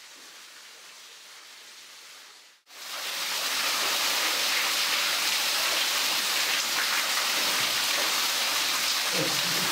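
Faint hiss for the first two and a half seconds, then, after a sudden cut, a small underground waterfall pouring down a cave wall, splashing loudly and steadily onto rock and onto a caver standing in it.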